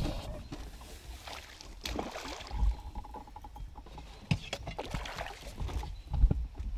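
Small boat on a river: water sloshing with a low rumble and a few sharp knocks against the hull.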